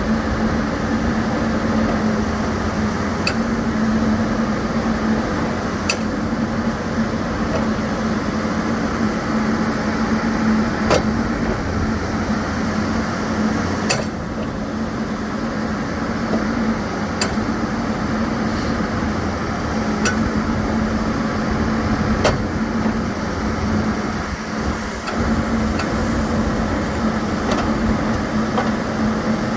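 Case 590 Super N loader backhoe's diesel engine running steadily while the machine is worked, with a sharp clank every few seconds.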